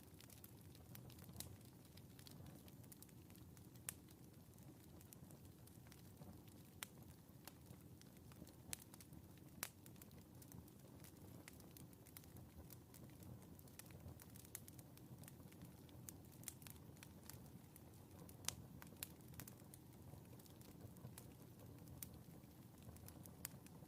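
Faint wood fire crackling in a fireplace: irregular sharp pops and ticks over a low, steady rumble of flame.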